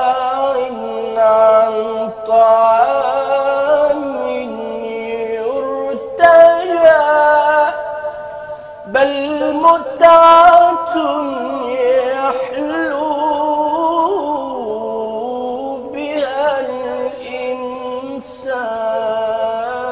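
A man singing an Arabic religious ibtihal for Ramadan solo, in long held notes with melismatic ornaments, the phrases broken by short breaths.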